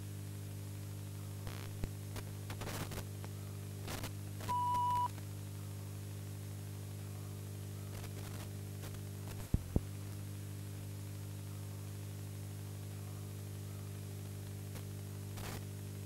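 Steady low electrical hum with faint hiss and a few sharp clicks, and one short steady beep about four and a half seconds in: an old-videotape playback effect of static with bars and tone.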